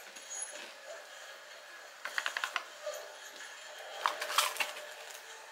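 A plastic banana-chip snack bag crinkling as it is handled, in two short bursts of rapid crackling: one about two seconds in and a louder one about four seconds in.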